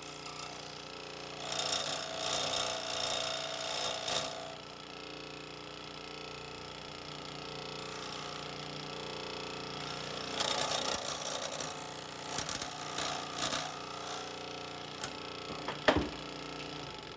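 A square plastic tube being cut through, heard as two spells of uneven cutting noise, about a second and a half in and again around ten seconds in, with a sharp click near the end.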